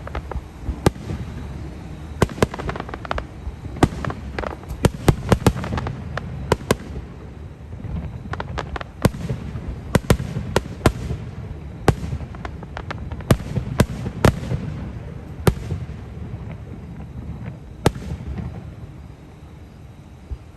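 Fireworks display: aerial shells bursting in quick, irregular succession, sharp bangs over a continuous low rumble, thinning out near the end.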